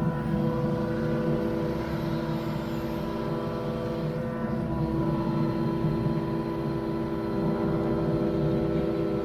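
Diesel engine of heavy equipment running at a steady speed, a constant drone with a low rumble.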